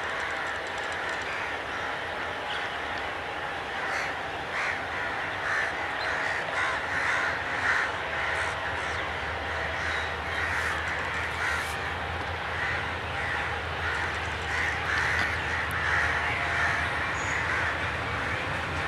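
Crows cawing over and over, many calls overlapping. From about halfway through, a low, steady rumble grows underneath: the diesel engine of an approaching ALCO RGE24 locomotive leading a container train.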